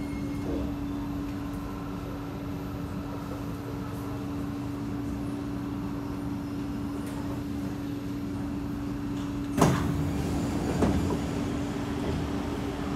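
Kawasaki C751B metro train heard from inside as it draws to a stop at the platform: a steady hum, then, about ten seconds in, a sudden loud sound and a second one about a second later as the doors open.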